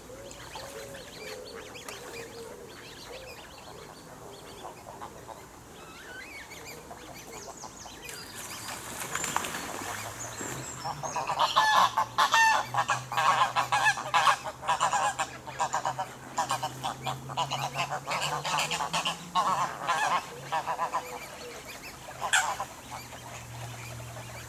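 Canada geese honking: after a quieter stretch, a rapid run of loud honks starts about halfway in and goes on for about ten seconds, with one more honk near the end.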